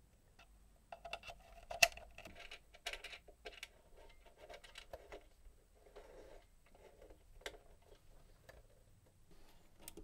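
Cables being plugged into the rear-panel sockets of an Arturia AudioFuse Studio audio interface: a run of light clicks, taps and handling rustles. The sharpest click is about two seconds in.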